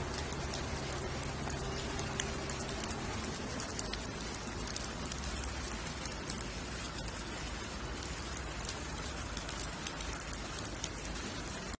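Steady rain falling on a flooded street, with scattered sharp ticks of drops. A low hum sits under it for the first few seconds.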